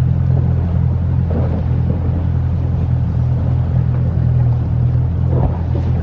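Outboard motor of an inflatable boat running steadily under way, a constant low drone.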